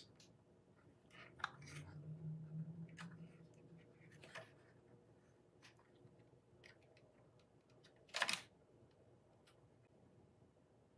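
Quiet handling of small model-kit parts at a workbench: faint clicks and taps as pieces are fitted and tightened, with one brief rustling scrape about eight seconds in.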